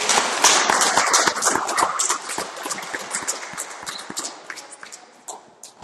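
Audience applauding: dense clapping at first, thinning to scattered claps and dying away near the end.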